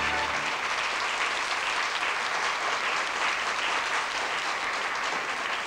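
Studio audience applauding steadily; the last held chord of the theme music cuts off about half a second in.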